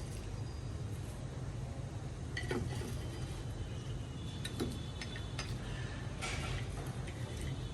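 Utensils clinking and tapping against dishes a few times, with a steady low hum underneath.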